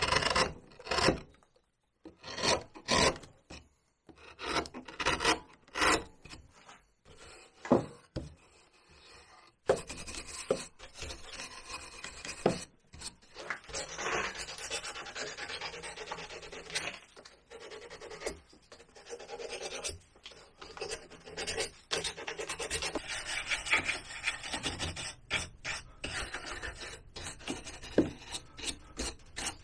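Carving knife paring cottonwood bark in short separate cuts, then from about ten seconds in a continuous rubbing over the carved bark surface.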